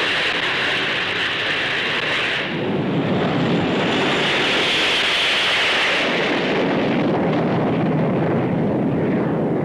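Jet engines of Hawker Hunter fighters, a loud, steady roar with a high whine. The whine drops out about two and a half seconds in as a deeper rumble swells, then comes back for a while.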